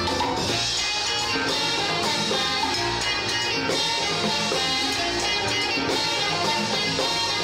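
Latin band playing live: electric guitar over Latin percussion (timbales, congas, bongos) and drum kit, with bass, vibraphone and horns in the mix.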